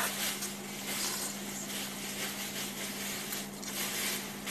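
Spaghetti being slurped and chewed close to the microphone: soft, irregular wet mouth noises. A steady low hum runs underneath.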